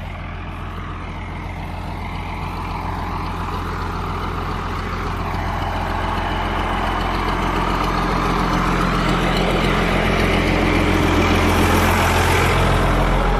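Heavy engine running at a steady pitch, growing gradually louder.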